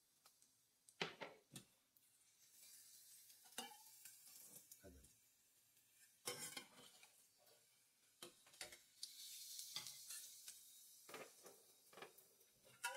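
Faint sizzling of hot oil with a little minced garlic in a stainless-steel saucepan, rising in two spells. A metal ladle stirs through it, clinking and scraping against the pan a dozen or so times.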